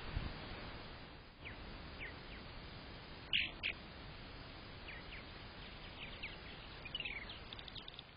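Purple martin chirping: scattered short, downward-sliding calls, the two loudest close together about three and a half seconds in and a quick run of them near the end, over a steady faint hiss.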